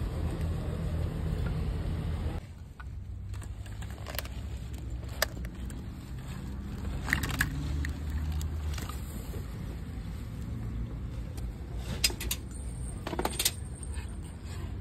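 Plastic chargers and cables being rummaged and picked up by hand: scattered sharp clicks and knocks over a steady low background rumble.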